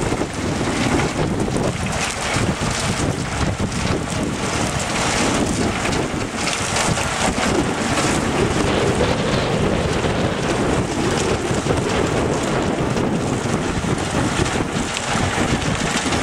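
Mobile sand washing and screening plant running steadily: drive motors, belt conveyors and a bucket-wheel sand washer, with water gushing from its outlet. Wind buffets the microphone throughout.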